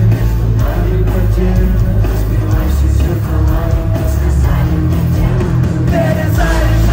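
Live rock music played loud through a stadium PA: electric guitar, heavy bass and drums, with singing that stands out near the end.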